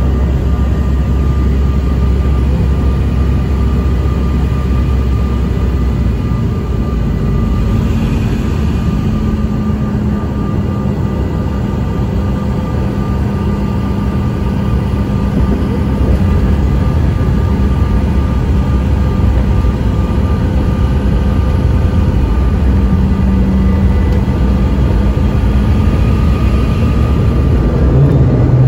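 Cabin sound of a CRJ-900 landing: the rear-mounted General Electric CF34 turbofans give a steady whine over a loud, low rumble. About halfway through the rumble grows louder as the jet touches down and rolls out on the runway, and a new low tone comes in near the end.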